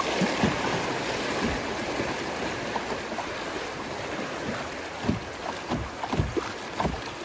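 River water rushing past a canoe just through rapids, with wind buffeting the microphone. A few low thumps come near the end.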